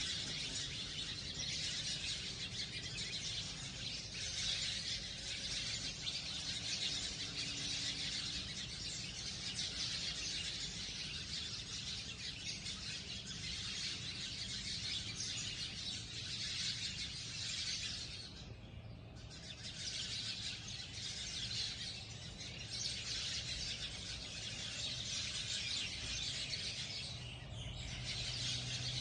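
A flock of sparrows chirping together in a dense, continuous chatter. The chatter thins out briefly twice, once a little past halfway and again near the end.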